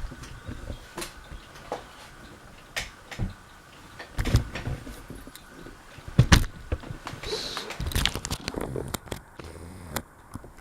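Scattered clicks and knocks of something being handled, irregular, the loudest about four and six seconds in.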